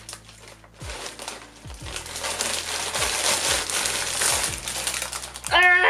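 Plastic mailer bag crinkling and rustling as hands dig into it and pull an item out. It starts about a second in, grows louder, and stops just before the end.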